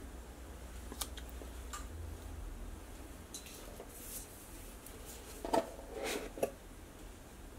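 Quiet clicks and clinks of a metal measuring spoon being handled while salt is spooned into a pot of broth, with a few louder short clatters near the end.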